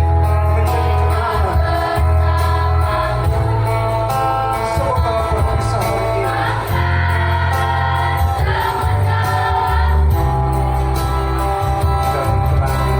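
A school choir singing in harmony over an amplified accompaniment with a heavy, steady bass.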